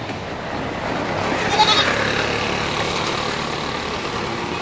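Road traffic passing, with one short honk about a second and a half in.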